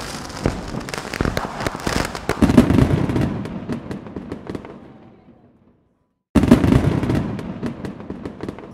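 Fireworks bursting and crackling, with dense sharp cracks and heavier bangs, fading out about five seconds in. After a brief silence they start again abruptly and fade once more.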